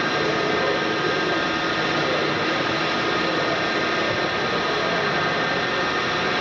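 Haas VF-4B CNC vertical machining center running: a steady machine whir with a few constant tones held throughout.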